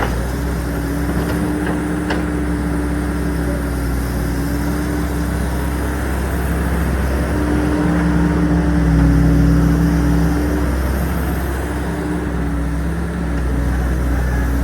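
Hydraulic excavator's diesel engine running steadily, a little louder for a couple of seconds around the middle.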